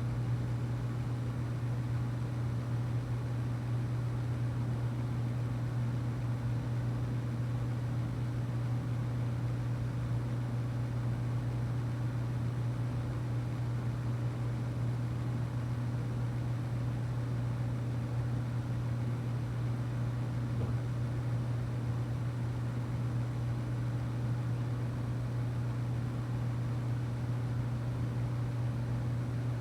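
A steady, unbroken low hum with a faint hiss above it.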